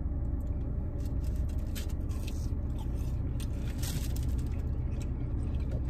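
Steady low hum of a car's cabin, with faint taps, rustles and scrapes of takeout containers and paper bags being handled.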